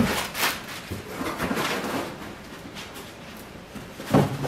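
Crinkling plastic air-pillow packing and rustling cardboard as packing is pulled out of a shipping box, in irregular bursts that die down midway. Near the end, a louder cardboard scuffle as the box is lifted.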